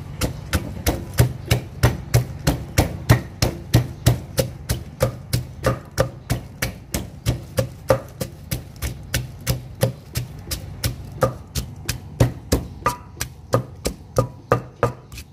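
Wooden pestle pounding chilies, garlic and salt in an earthenware mortar: a steady run of dull thuds, about three a second, crushing the ingredients into a paste.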